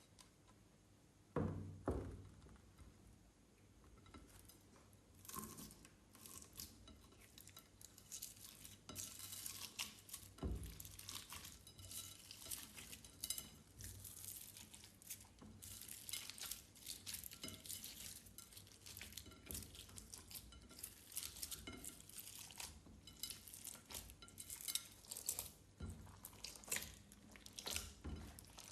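Clear slime being mixed, a dense, uneven run of small sticky clicks and crackles. Two knocks come about a second and a half in.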